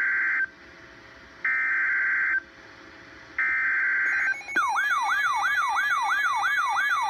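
Emergency Alert System broadcast: the digital SAME header data bursts, one ending and two more about a second long each, then a rapidly warbling siren-like alert tone starting about four and a half seconds in.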